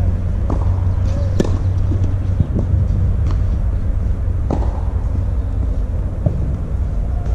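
Tennis ball knocks from racket strikes and bounces on a clay court during a point, several sharp knocks at uneven spacing, over a steady low hum.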